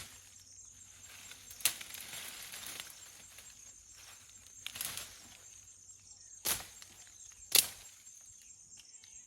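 A panga chopping wood: about five sharp strikes at irregular intervals, one followed by a brief rustle of brush. Crickets chirp steadily behind.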